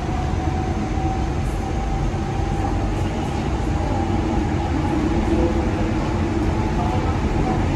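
Steady running noise heard inside a moving Istanbul M6 metro car: a low rumble of wheels on rail with a faint steady whine.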